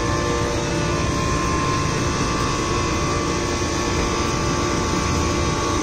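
Steady mechanical drone with a steady high whine, unchanging throughout.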